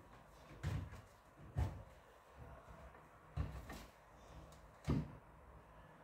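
Four dull knocks and clunks from plastic drain pipes under a kitchen sink being handled and fitted, spread out with gaps between them; the last, near the end, is the loudest.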